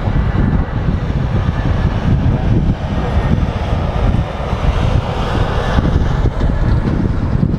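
Airbus A319 jet airliner on landing approach, its engines giving a steady low rumble mixed with gusty wind buffeting on the microphone.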